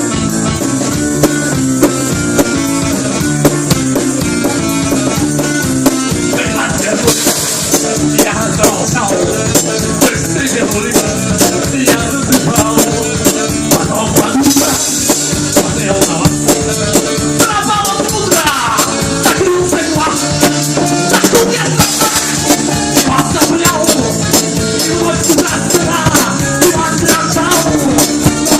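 Live band playing an instrumental stretch of a song, with a steady drum beat and guitar; cymbals come in about seven seconds in, and a melodic lead line enters near the middle.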